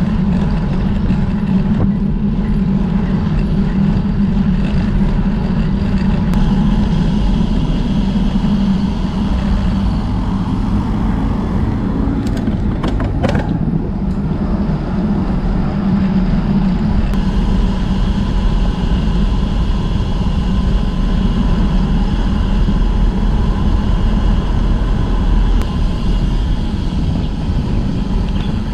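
Steady wind rush on the camera microphone with tyre and road noise from a road bicycle coasting down a gentle slope. A few short clicks come about halfway through.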